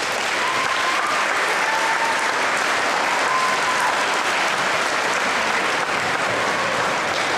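Audience applauding, steady and dense, right after a women's traditional dance.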